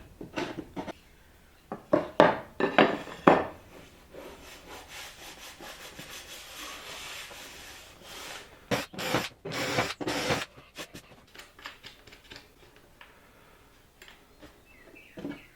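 A hand tool working wood in repeated scraping strokes, about two to three a second, in two bouts with a steadier rubbing hiss between them, then a quieter spell near the end.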